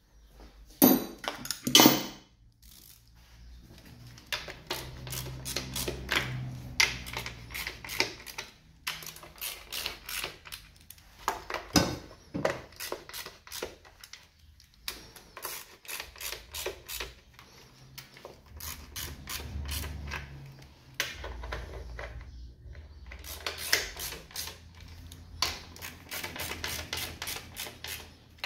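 Irregular clicking and clinking of hand tools and plastic and metal parts being handled in a car's engine bay, with two sharp knocks about a second or two in. A low hum comes and goes underneath.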